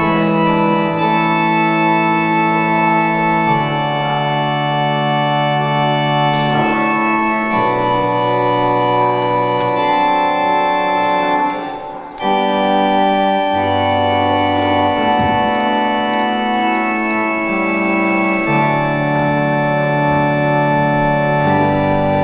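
Church organ playing held chords that change every second or two over a low pedal bass, with a brief break in the playing about twelve seconds in.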